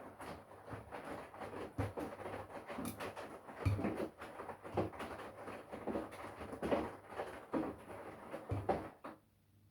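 Front-loading washing machine drum turning through a wash, with laundry and water sloshing and thudding irregularly over a low motor hum. The tumble stops about nine seconds in as the drum pauses between turns.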